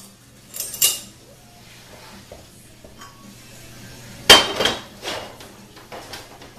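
Steel hubs of a 6L80 automatic transmission clanking against the case and each other as they are pulled out and set down: a clank about a second in, then a loud ringing metallic strike a little past four seconds, followed by a couple of lighter knocks, over a faint steady low hum.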